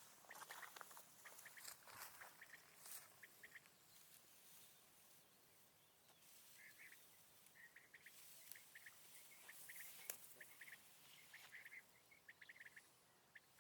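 Faint quail calls: groups of short, clipped notes at one pitch, repeated again and again, with a few soft rustles in the first seconds.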